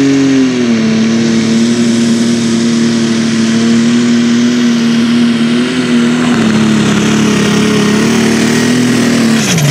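Farmall super stock pulling tractor's engine running hard at full load while dragging the pulling sled, holding one steady high pitch that sags a little about a second in. Near the end the revs drop sharply.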